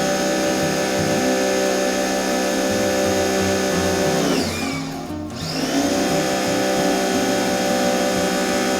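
Electric pressure washer motor and pump running with a steady whine. About halfway through, the pitch sags and the sound dips, then both come back up to full speed.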